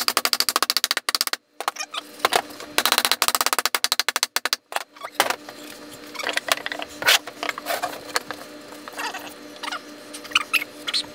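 Rapid runs of light hammer taps on wood, knocking a cedar box's finger-jointed corner together: one quick run at the start and another about three seconds in. After that come scattered quieter wooden knocks and handling as the box sides are fitted.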